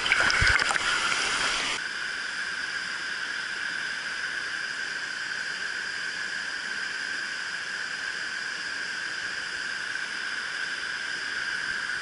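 Water splashing close by for about the first two seconds, cut off abruptly, then the steady rush of small waterfalls pouring into a rock pool.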